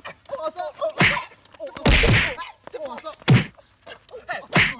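Blows landing in a fistfight, punches and slaps as hard whacking hits: four of them, about a second apart.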